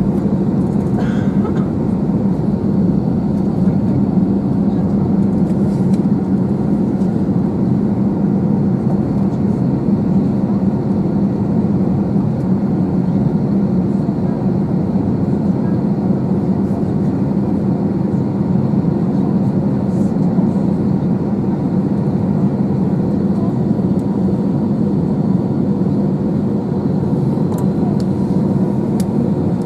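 Steady cabin hum inside an Airbus A321 on the ground during de-icing, with a low tone held throughout.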